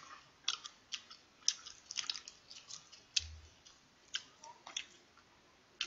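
A salt-grilled king prawn's shell crackling and snapping as it is peeled off by hand: a quiet, irregular run of short clicks.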